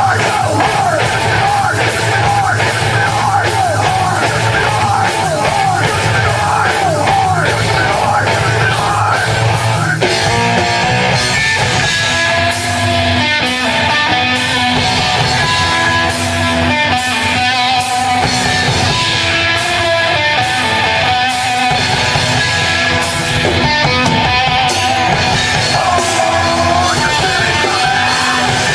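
A rock band playing live at full volume. About ten seconds in the music changes to a sparser, stop-start section.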